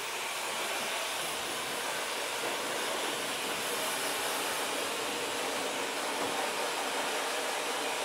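ULESM WY602-A ionic hair dryer with a 1400 W high-speed brushless motor running steadily: an even rush of blown air with a hiss that reaches high up.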